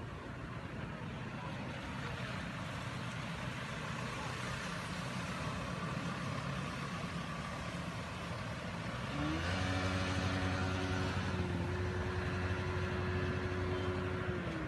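An engine running steadily, then revving up about nine seconds in and holding at the higher speed.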